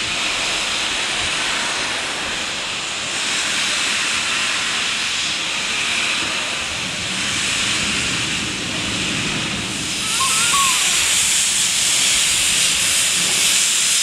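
SAR 620 class steam locomotive 621 "The Duke" standing with steam escaping at track level: a steady rushing hiss that gets louder about ten seconds in.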